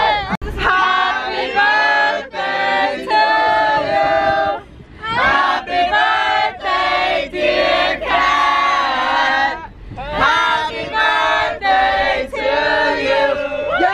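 A group of women singing together loudly inside a van, in sung phrases with two short breaks, about five and ten seconds in.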